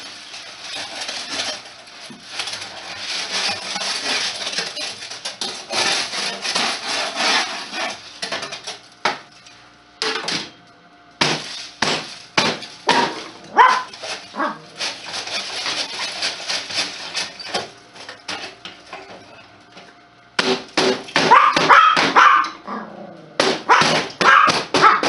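Sheet-metal stovepipe scraped and rattled as it is worked loose by hand, then a run of sharp knocks on it. Near the end a dog barks several times.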